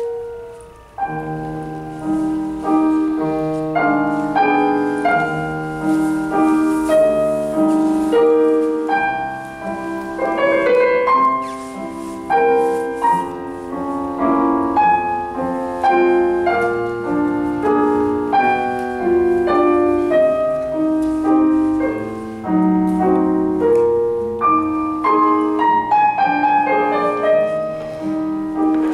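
Solo piano music played on a digital piano: a single note at the very start, then a continuous flow of notes from about a second in, with melody and accompaniment together.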